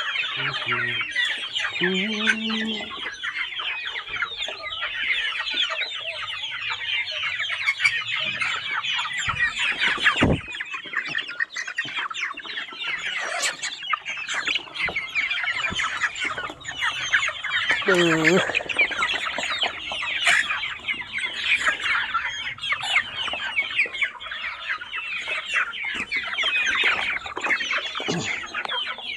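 A flock of young ayam kampung super chickens calling constantly while crowding and jostling at feed: a dense chorus of high cheeping with clucks, and a few lower calls. A single thump about ten seconds in.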